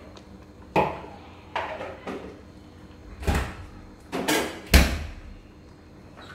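A series of sudden kitchen knocks and clunks, about six in all, like things being set down or shut. The loudest is a heavy thud about five seconds in.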